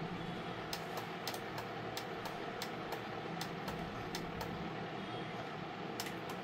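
Button clicks on an Epson PictureMate compact photo printer's control panel as the photos are stepped through: about a dozen quick clicks at roughly three a second, a pause, then two more near the end, over a steady background hum.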